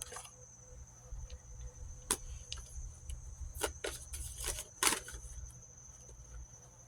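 Oracle cards being handled, giving a few scattered soft clicks and snaps, over a steady high thin tone and a low hum.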